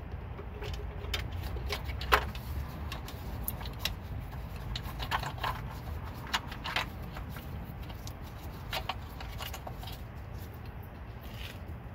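Light irregular clicks and small rattles as an ABS wheel-speed sensor cable and its plastic clips are pulled and worked by hand through the wheel well, with one sharper click about two seconds in. A steady low rumble runs underneath.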